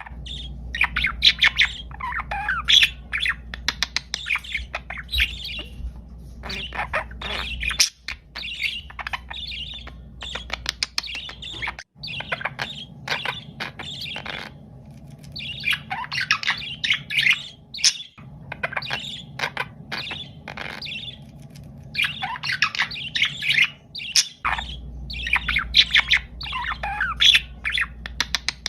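Budgerigars chattering: quick chirps, warbles and squawks in busy bursts of a few seconds each, over a faint steady low hum.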